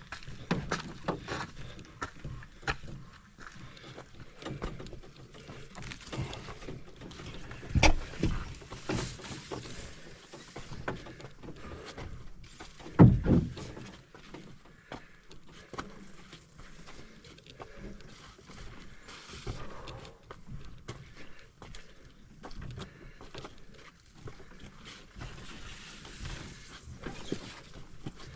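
A person carrying a load along a portage trail: footsteps with heavy breathing and grunting close to the microphone, and irregular knocks and rustling. Two louder thumps come about 8 and 13 seconds in.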